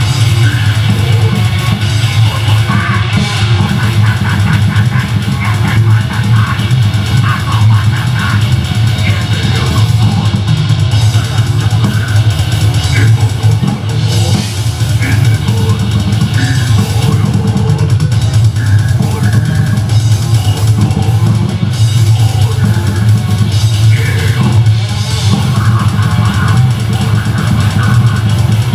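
A metal band playing live: distorted electric guitar riffing over bass guitar and a drum kit, steady and loud with no breaks.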